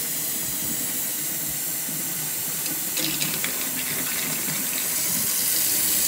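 Kitchen faucet running into a stainless steel sink, the water draining freely down the open drain: a flow test of newly installed drain pipes. A patch of splashing about three seconds in, and the water grows a little louder near the end.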